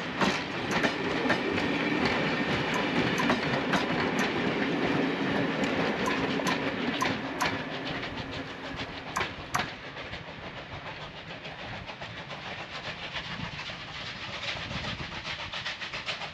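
A train on the East Lancashire heritage railway passing by, its wheels clicking over the rail joints at about one or two clicks a second. The train fades away about ten seconds in.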